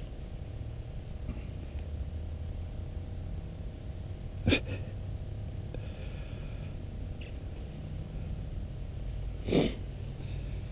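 A person sniffing sharply through the nose twice, about five seconds apart, over a steady low rumble.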